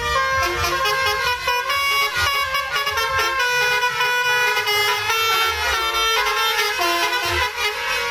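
Indonesian bus 'telolet' musical horn playing a quick melody, its stacked horn tones stepping from pitch to pitch without a break.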